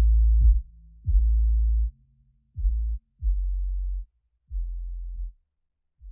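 Background music: a run of deep bass notes, each struck sharply and held for under a second with short gaps between, growing quieter toward the end.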